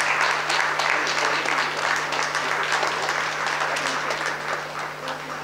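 Audience applauding: many hands clapping together, slowly dying down toward the end.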